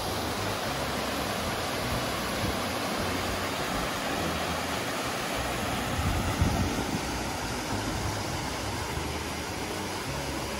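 Steady rush of a small waterfall cascading over sandstone into pools, with a brief low rumble about six seconds in.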